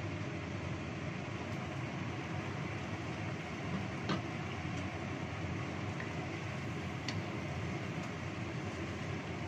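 Steady rushing of a gas stove burner heating a wok of simmering coconut-milk stew. A few short metallic clinks of cookware cut through it, the clearest about four seconds in.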